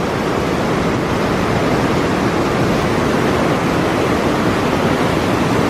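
Fast-flowing snowmelt river rushing loudly, a steady, even roar of water.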